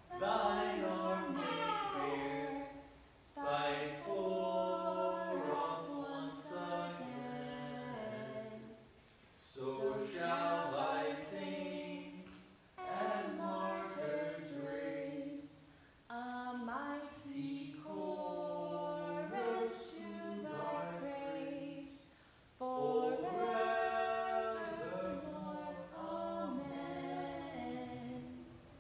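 Choir singing unaccompanied, in phrases of a few seconds with short breaks between them.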